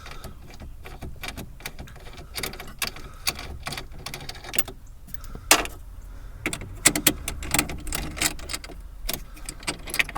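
Irregular small metallic clicks and knocks as the nuts on an Audi A4's battery-fuse terminals are undone with a 13 mm wrench and the fuse is handled.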